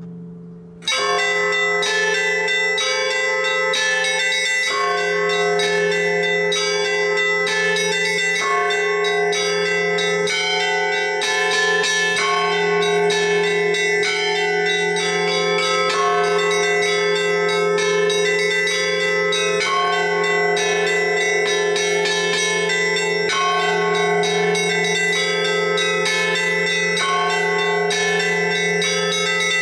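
Russian Orthodox church bells rung together in a peal: the small chiming bells strike in quick, dense patterns over the steady ringing of the larger bells. The peal starts suddenly about a second in and then keeps going.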